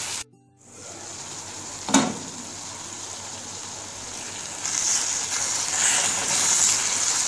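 Onions and tomatoes sizzling in a metal pan as a spoon stirs them, with a sharp clink of the spoon on the pan about two seconds in. The sizzle breaks off briefly just after the start and grows louder in the second half.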